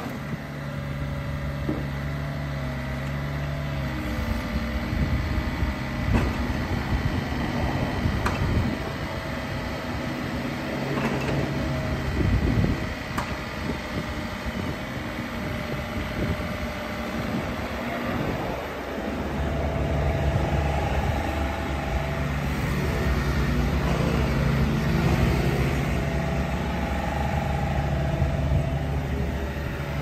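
Komatsu PC27MRX mini excavator's three-cylinder diesel engine running while the machine tracks and turns, its note shifting as the engine speed changes, with a few short clanks.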